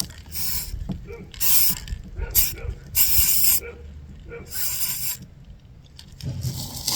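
Aerosol spray paint can spraying in about five short bursts, each under a second, with brief pauses between.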